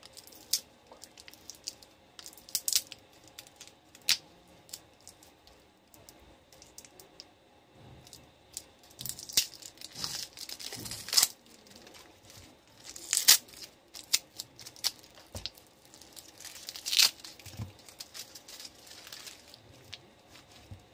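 Clear plastic wrap and tape being cut and torn off a bundle of cylindrical lithium-ion cells: sharp small clicks at first, then irregular bursts of tearing and crinkling, loudest in the middle.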